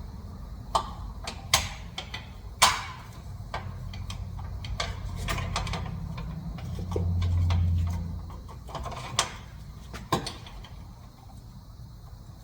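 Sharp knocks and clicks of tools on metal, a dozen or so scattered through, with a low hum that swells and fades about seven seconds in.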